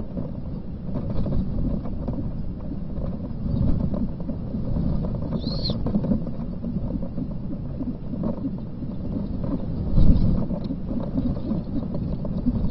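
Great horned owl moving in a gravel-lined planter-box nest: rustling and bumping against a steady low rumble, with a louder thump about ten seconds in. A brief high chirp sounds about halfway.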